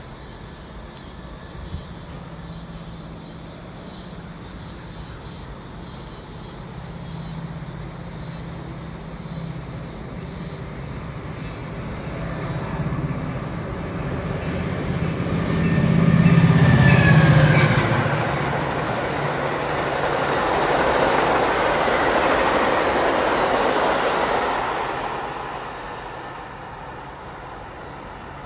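Metra commuter train led by an EMD F40PH diesel locomotive passing at speed. The engine's drone builds as it approaches, is loudest as the locomotive goes by, and drops in pitch. The passenger cars then rumble and clatter past for several seconds before the sound fades near the end.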